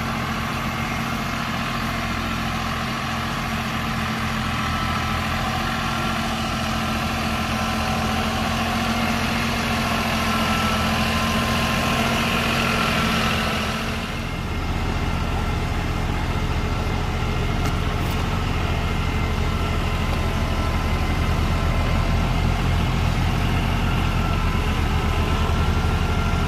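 Diesel engines of a tractor and a truck running steadily. About fourteen seconds in, the sound dips briefly and then the engine note is deeper.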